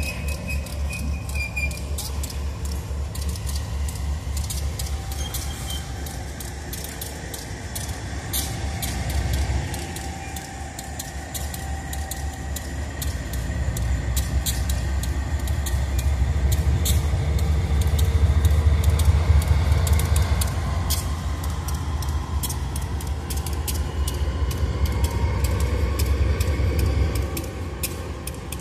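GE AC44i diesel-electric locomotives rolling slowly past while switching freight wagons. The diesel engines give a low, throbbing rumble, with many short clicks from the wheels on the rails. It grows louder in the middle as the units come closest.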